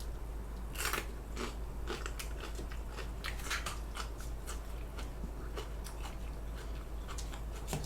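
Close-up crunching and chewing of a crisp cucumber chili pepper (oi-gochu) dipped in ssamjang: a crisp bite about a second in, then a run of irregular crunches as it is chewed.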